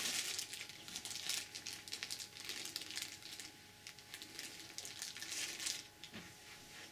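Clear plastic bag crinkling as a bagged cable is picked up and laid down: a run of rustles and small crackles that starts suddenly and stops near the end.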